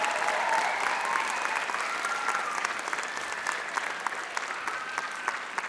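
Audience applauding at the end of a dance performance, with a few voices calling out; the clapping slowly dies down.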